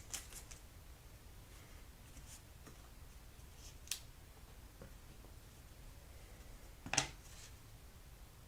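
Faint handling of trading cards: soft slides and a few small clicks, with a sharper click about four seconds in and a louder tap about seven seconds in.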